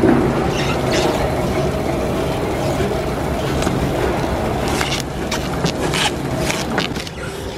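Luggage-wrapping machine running: the turntable motor gives a steady hum as the suitcase spins and the stretch film winds on. Several sharp crackles come about five to six and a half seconds in.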